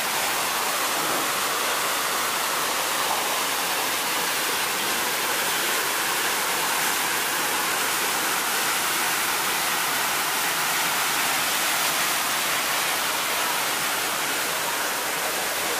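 Waterfall's falling water: a steady rushing noise with no let-up.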